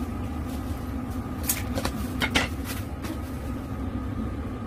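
Steady low rumble with four sharp clinks of utensils against a stainless stockpot, between about one and a half and two and a half seconds in.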